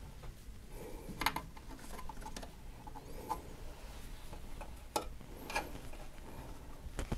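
Scattered light clicks and taps of small hardware being handled and fitted inside a PC case, a handful of separate clicks a second or so apart.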